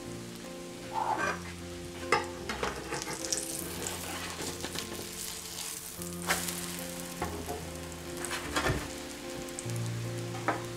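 Pancake batter frying in butter in a skillet, a steady sizzle, with a few sharp clicks and scrapes of a metal spatula against the pan as the pancake is flipped about halfway through.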